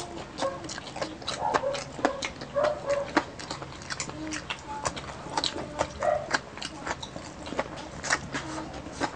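Close-miked eating sounds: chewing, with many irregular wet mouth clicks and lip smacks, from people eating crispy fried pork knuckle, rice and green chili with their hands.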